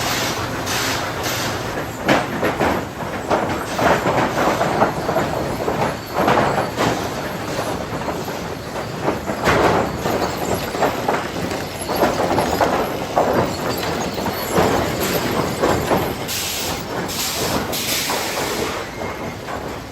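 Sawmill lumber-stacking machinery clattering as boards knock and slide against each other on the conveyors and stacker, in a steady run of irregular wooden knocks. A few short hisses come near the end.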